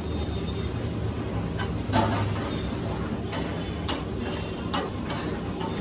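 Background noise of a busy street-food stall: a steady low hum with a few scattered knocks and clinks, the loudest about two seconds in.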